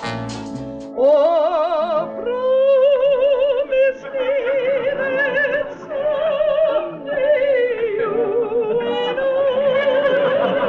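A woman singing in an operatic style, with long held notes and a wide, heavy vibrato, accompanied by piano. Under the first second is the end of a brassy swing band number, which cuts off abruptly.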